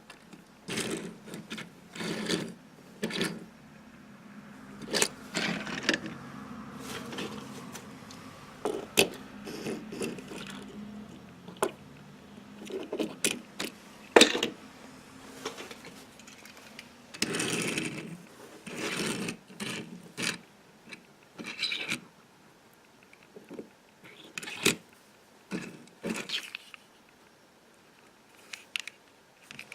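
Used toy cars and their packaging being handled: a string of irregular sharp clicks and knocks mixed with short rustling and scraping noises.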